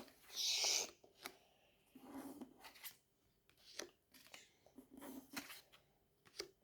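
Match Attax trading cards being handled and slid against one another, a short rustle near the start, then scattered faint rustles and clicks.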